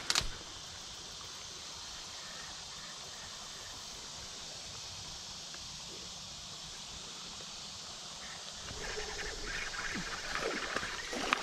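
Steady outdoor background hiss, with a sharp click right at the start and irregular rustling from about nine seconds in.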